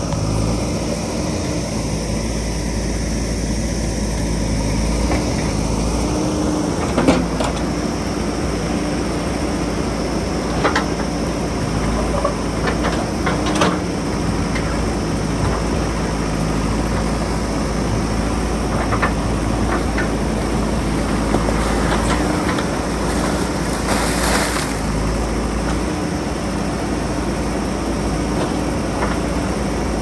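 JCB backhoe loader's diesel engine running steadily while the backhoe digs in a rocky stream bed, with a few sharp knocks of the bucket against stone, the loudest about seven seconds in.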